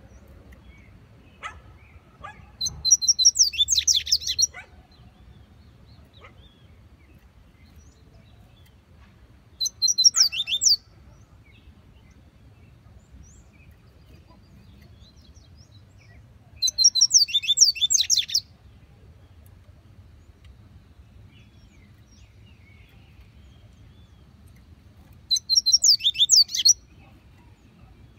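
Double-collared seedeater (coleiro) singing: four phrases of rapid, high-pitched notes, each one to two seconds long, with several seconds of pause between them.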